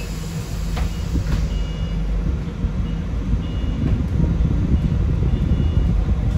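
Cabin sound of a Sunwin SWB6127EV electric bus running: a steady low rumble with a faint hum, growing slightly louder, and short high-pitched beeps that come and go.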